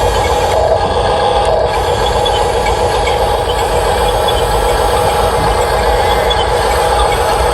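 Electric motors and gearboxes of radio-controlled construction models running, a steady whine over a low grainy rumble.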